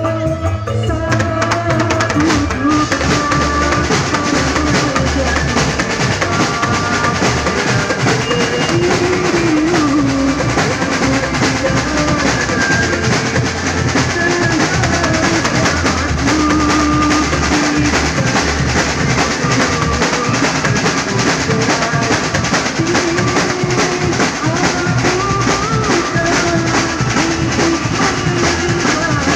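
Band music with a full drum kit keeping a dense, steady beat over bass, and a wavering melody line on top without singing.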